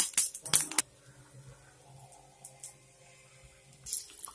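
Fish egg fritters shallow-frying in hot oil: sharp crackling pops of spattering oil for just under a second, then a quiet stretch with a faint low hum, with the crackling back near the end.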